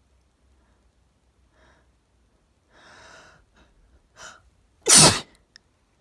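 A woman's allergy sneeze: two breathy, catching inhales build up, then one loud, sharp sneeze about five seconds in.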